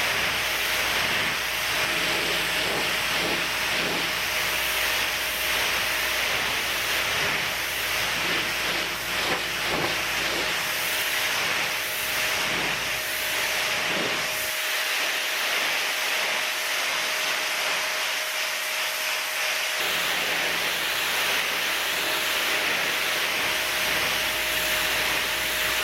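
Small 1500 psi electric pressure washer spraying its water jet onto an outdoor table: a steady hiss of spray, with a thin steady tone running under it.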